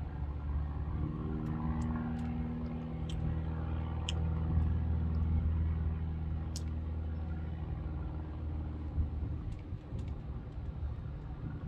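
Steady low rumble of motor traffic, with a passing engine's hum swelling and fading through the first half, and a few faint clicks.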